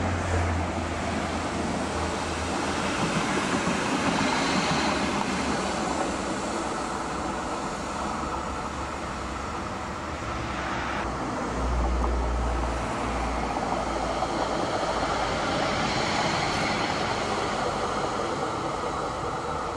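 Trams running along a ballasted track, with steady wind noise and rumble on the microphone. The sound changes abruptly about eleven seconds in, and an older single-car tram passes close near the end.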